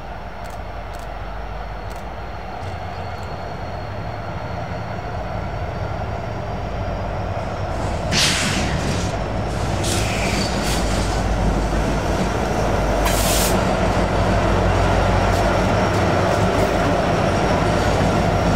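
A pair of EMD SD70ACe diesel-electric locomotives, 16-cylinder two-stroke 710 engines, pulling a loaded freight train toward and past the listener, the engine rumble and wheels on rail growing steadily louder as they come up. Two short hissing bursts cut in about 8 and 13 seconds in.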